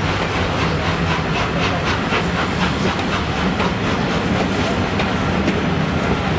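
Coaches of a steam-hauled train, behind A1 Pacific 60163 Tornado, rolling past close by. Their wheels click over the rail joints several times a second over a steady low rumble.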